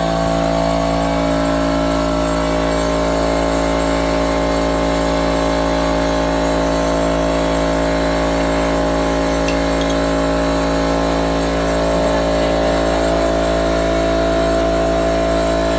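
A machine motor running at an even speed, making a loud, steady hum with several held tones.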